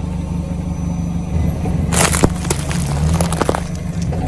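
Car engine idling low as the tyre rolls slowly onto an old Nokia mobile phone. About two seconds in the phone's casing cracks loudly, followed by a quick run of smaller cracks and crunches as it breaks under the wheel.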